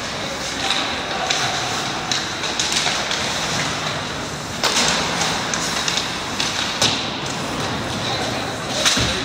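Ice hockey play in a rink: a steady scrape of skates on the ice, broken by a few sharp clacks of sticks and puck, the loudest near the end, with voices underneath.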